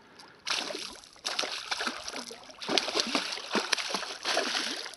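Large hooked pike thrashing and splashing at the water's surface as it is played in on the line, a run of irregular splashes starting about half a second in.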